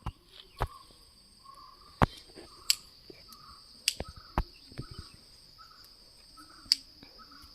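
Sharp snips of scissors trimming leaves off a bonsai tree, several cuts spaced irregularly, over a steady high chirring of insects.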